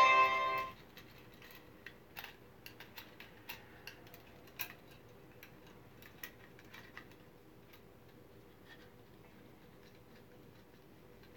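A brief musical tone dies away in the first second. Then come small, irregular metal clicks and ticks as needle-nose pliers work the nut on a gold speaker binding post mounted in a 3D-printed plastic wall plate, the loudest one a few seconds in.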